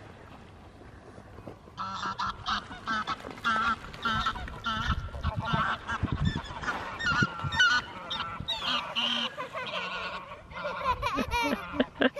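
A flock of geese honking, many short calls overlapping, starting about two seconds in.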